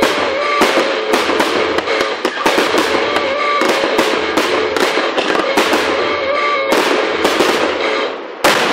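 Fireworks display: a dense run of aerial shells bursting and crackling in quick succession, with a sharp loud bang near the end after a brief lull.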